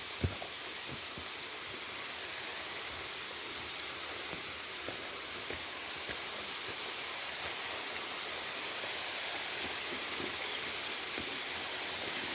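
Waterfall's rushing water: a steady hiss that grows slightly louder, with a single short knock just after the start.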